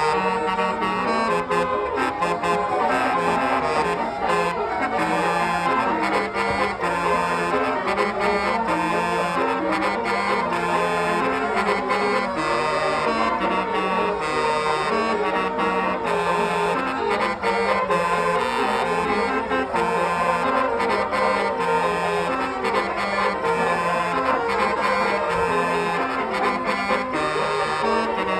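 Bus basuri horn, a multi-trumpet musical horn, playing a continuous tune of held and changing notes in the growling 'ngorok' (snoring) style.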